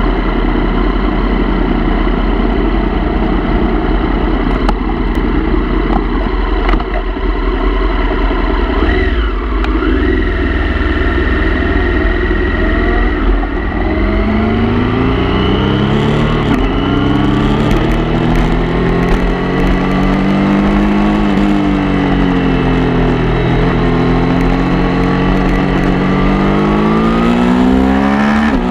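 Motorcycle engine, heard close up from a camera mounted on the bike, running steadily at first, then pulling away about halfway through and accelerating, its pitch climbing and dropping back several times as it goes up through the gears.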